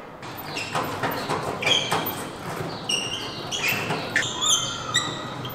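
Children's short, high-pitched squeals and shrieks, many in a row and several falling in pitch, over a steady background din of a busy hall.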